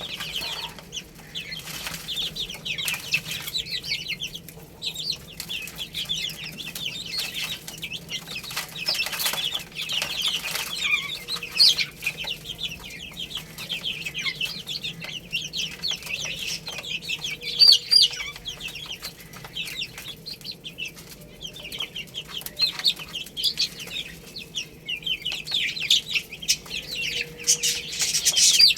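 A group of baby chicks peeping continuously, many short high-pitched chirps overlapping, with occasional sharp taps or clicks in between.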